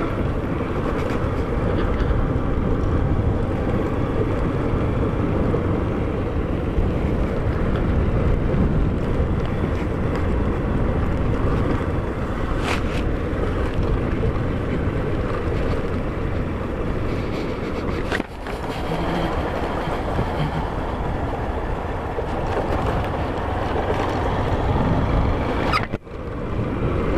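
A 160 cc motorcycle being ridden along a dirt road: its engine runs steadily under a constant rush of wind and tyre noise. The sound drops briefly twice, about two-thirds of the way through and again near the end.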